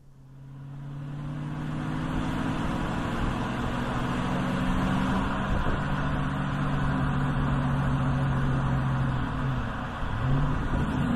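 Car being driven, heard from inside the cabin: a steady engine hum over road noise, fading in over the first couple of seconds. The engine's pitch dips briefly and comes back up near the end.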